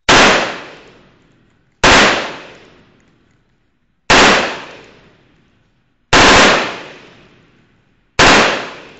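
Five single shots from a short-barrelled Colt M4 carbine fitted with a Troy Industries Claymore muzzle brake, about two seconds apart, each one sharp and then trailing off in about a second of echo.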